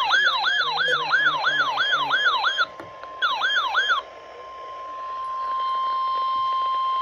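An electronic siren alarm of fast falling whoops, about three a second, breaks off briefly and stops about four seconds in. It leaves the NOAA Weather Radio 1050 Hz alert tone, a steady high beep that swells and is held for about three seconds before cutting off. The tone is the signal that an emergency weather broadcast follows.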